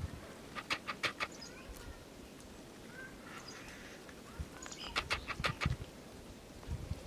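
Small woodland birds calling: two quick runs of short harsh notes, one about a second in and one around five seconds, with fainter thin calls between.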